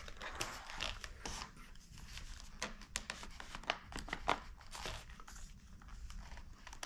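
Light handling noise as a foam RC-plane wing is pushed into its fuselage: foam and plastic parts rubbing and creaking, with scattered small clicks and rustles of wires.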